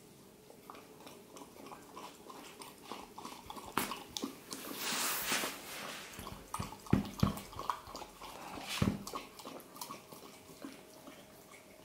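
Staffordshire bull terrier puppy lapping and licking a drink out of a glass tumbler: a run of short wet tongue clicks, a breathy rush about five seconds in, and a few dull knocks near the middle and toward the end.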